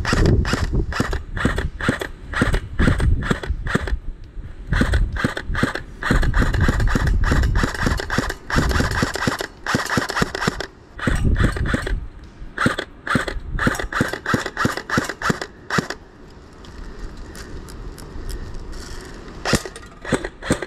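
Jing Gong AR36C airsoft electric gun firing BBs, mostly in single shots, with two rapid full-auto bursts in the middle. It goes quiet for a few seconds near the end before a few more shots.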